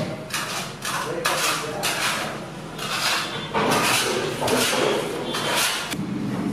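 A metal knife blade scraping and smearing thick icing across a stone slab in repeated strokes, about one or two a second, which stop near the end.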